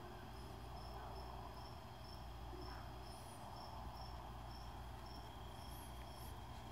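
A cricket chirping steadily in the background, short high chirps about twice a second, over a low steady hum.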